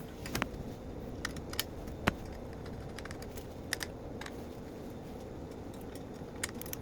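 Scattered light metallic clicks and taps from a bracket, bolts and hand tools being handled, with one sharper tap about two seconds in, over a steady low background noise.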